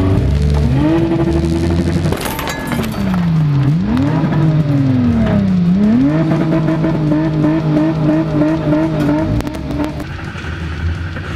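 A four-cylinder compact demolition-derby car's engine, heard from inside the stripped cabin, revving up and down in long swoops. There is a brief clattering crash about two seconds in, and later the engine note wavers rapidly before dropping away near the end.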